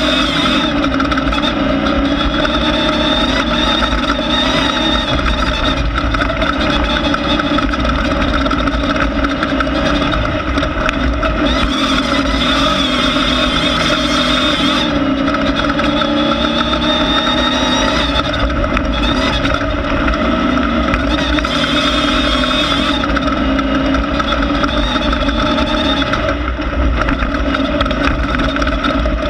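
Air-cooled 1600 cc Volkswagen engine of a Class 1600 off-road race car running continuously, its pitch rising and falling a little as it changes speed.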